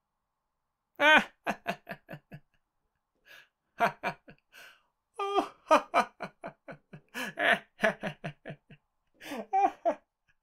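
A person laughing in several bouts of quick 'ha-ha' pulses, some bouts falling in pitch.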